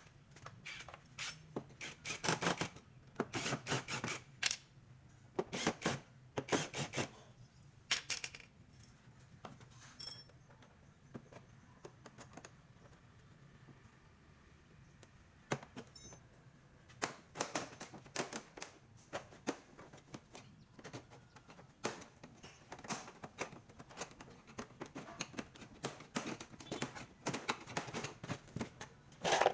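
Irregular runs of sharp clicks and rattles from hands handling small tools and parts, with a quieter stretch in the middle.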